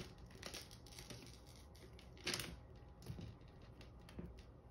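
A chihuahua puppy's claws scratching and pawing at a door and a plastic bin, making faint scattered clicks and scrapes, the loudest a little past the middle.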